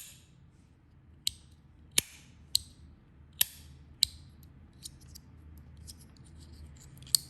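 Zirconium and brass fidget slider being snapped back and forth by hand: sharp metallic clacks, six loud ones about every half second to second, then lighter ticks near the end.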